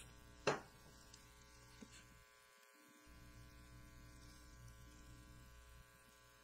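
A short hissing spritz from a pump spray bottle of face mist, loudest about half a second in, with a fainter one near two seconds, over a steady electrical hum.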